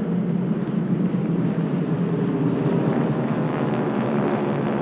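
The Pratt & Whitney R-1340 Wasp radial engines of about fifteen North American Harvard / T-6 / SNJ trainers flying in formation, droning together in a steady, dense chorus.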